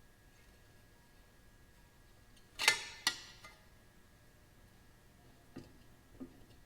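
Hand tools clinking on metal while small bolts are run down: one sharp clink about two and a half seconds in, a lighter one just after, and a few faint ticks near the end, against a quiet background with a faint steady hum.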